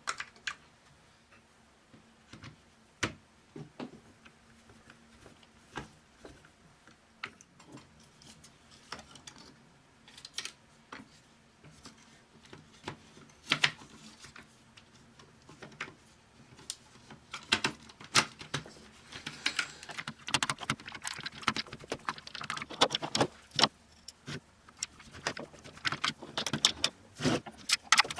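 Small plastic gears and toy robot parts being handled and fitted together: scattered clicks and light taps, becoming a busy run of clicking and rattling in the second half.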